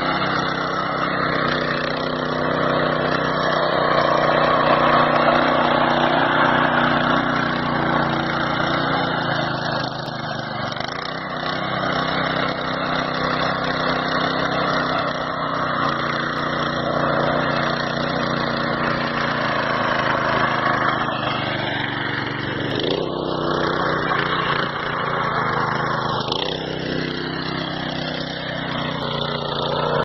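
Mini power tiller's small engine running steadily under load as its rotary tines till the soil. Its pitch sweeps up and then back down in the last third.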